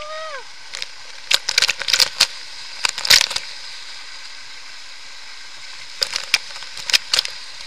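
Waterfall pouring onto a man and the camera close beside him: a steady rush of falling water, broken by clusters of sharp crackles and splashes, thickest from about one to three seconds in and again near the end. A brief rising-and-falling voice sound comes at the very start.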